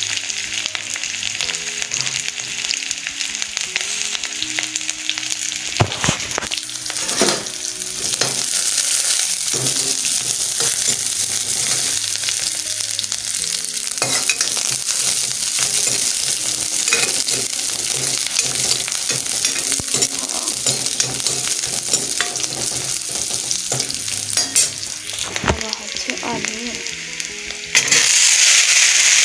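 Chopped onion sizzling in hot oil with browned garlic in a pan, stirred with a spoon that knocks against the pan now and then. Near the end the sizzling suddenly gets louder.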